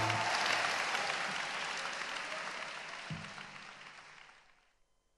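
Theatre audience applauding as the song's last acoustic guitar chord dies away; the applause fades out about four and a half seconds in.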